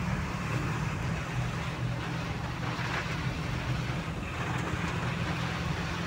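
Steady drone of a moving vehicle's engine heard from inside the cab, with the hiss of tyres on a wet road and rain and wind over it during a rainstorm.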